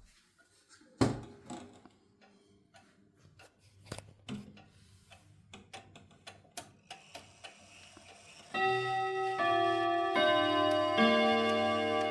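Junghans chime clock starting to play its chime melody about eight and a half seconds in, one ringing note after another, each new note coming roughly every 0.8 s and the earlier notes ringing on beneath it. Before that come scattered light clicks and knocks from the clock, with one louder knock about a second in.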